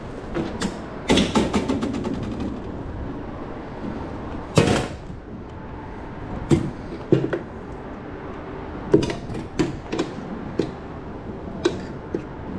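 Handling clatter while food is put together: scattered knocks and clicks, a quick rattle about a second in, and a short swoosh about four and a half seconds in.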